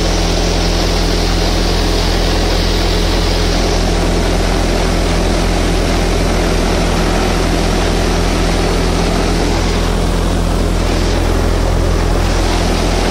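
A Swaraj 744 XT tractor's three-cylinder diesel engine working under PTO load, driving a thresher that is threshing moong. Together they make a steady, loud machine drone.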